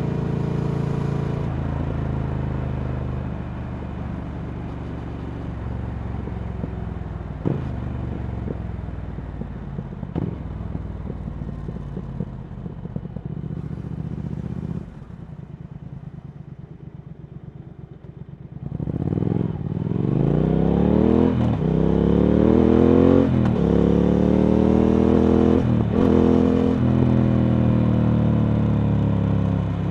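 Triumph Speed Twin 1200's parallel-twin engine through a Vance & Hines slip-on exhaust, heard from the moving bike. The engine note sinks as the bike slows and drops low for a few seconds. Just past halfway the throttle opens and the pitch climbs through several quick gear changes, then it settles into a steady cruise near the end.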